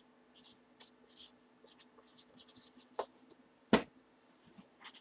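Marker pen writing on a cardboard box in short scratchy strokes, with two sharp clicks about three and three-and-three-quarter seconds in, the second the loudest.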